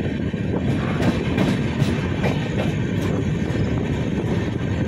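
Passenger train coach running along the track: a steady rumble with irregular sharp clicks of the wheels over rail joints.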